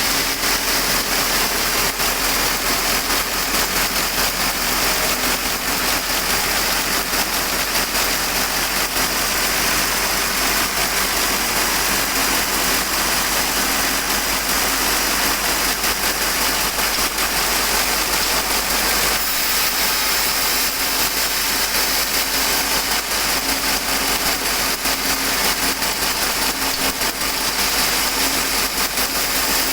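Sawmill machinery running steadily: a constant, loud mechanical drone with a hiss over it, without pauses.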